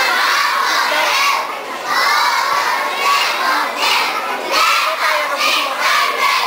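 Many young children's voices shouting together, loud and high-pitched, in phrases that dip briefly every second or so.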